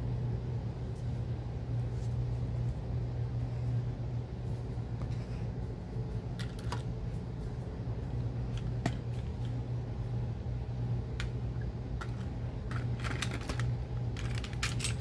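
HO scale model train set: a steady low electric hum with scattered light clicks and taps, which come thicker near the end.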